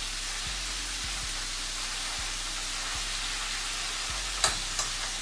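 Hot oil sizzling steadily as food fries in a pan, with one sharp click about four and a half seconds in.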